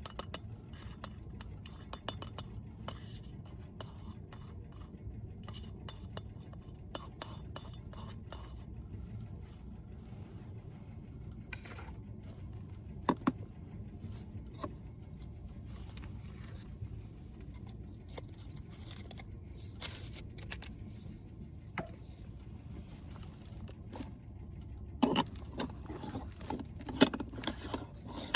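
Dishes and glassware clinking and knocking as they are handled, in scattered light strikes over a steady low rumble, turning into a busier clatter near the end.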